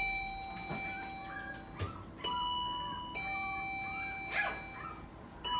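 An electronic two-tone doorbell chime repeating, a higher note followed by a longer lower one, sounding twice, with a puppy's short whimpers in between.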